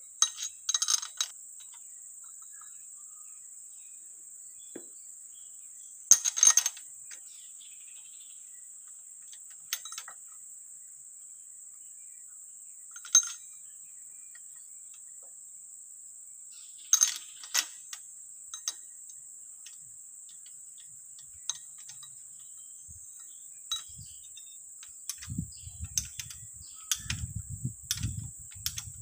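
Scattered sharp metallic clicks and clinks as the timing gears of a Perkins 4.236 diesel engine are fitted by hand, then a wrench is worked on the gear hub bolts, with denser low knocks and handling noise near the end. A steady high-pitched drone runs underneath.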